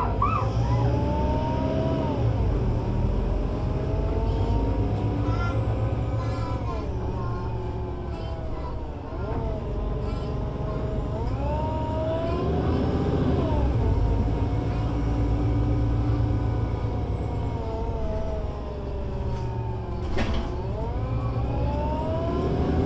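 Solaris Urbino 18 IV articulated city bus with a DAF diesel engine and Voith Diwa 6 automatic gearbox, running under way. Its engine and drivetrain note rises and falls several times as the bus speeds up, shifts and slows. A single sharp click comes near the end.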